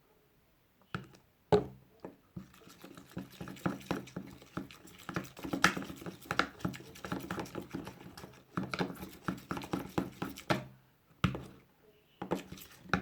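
Slime being mixed by hand with borax activator: a dense, irregular run of small sticky clicks and smacks, with a few sharper knocks near the start and near the end.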